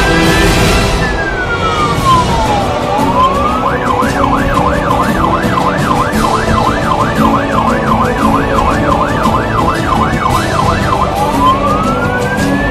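Fire engine's electronic siren heard from inside the cab: a slow wail rising and falling, switching about four seconds in to a fast yelp of about three rises a second, then back to the slow wail near the end, over the truck's engine and road noise.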